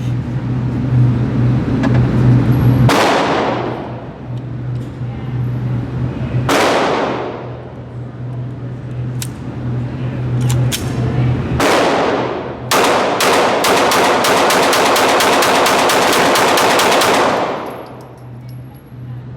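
Glock 17 9mm pistol fired on an indoor range: three single shots a few seconds apart, then a rapid string of about twenty shots, some four a second. Each shot has a long echoing tail.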